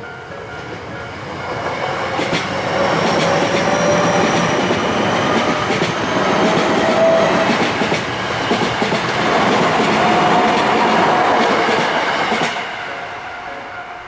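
Tokyo Metro electric commuter train passing a level crossing: rail noise swells about two seconds in, with wheels clacking over rail joints, and fades near the end. A level-crossing warning bell rings at the start.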